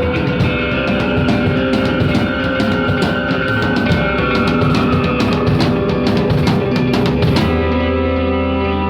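Rock music with distorted electric guitar and a drum kit. About seven seconds in, the drums and cymbals stop, leaving held guitar and bass notes ringing.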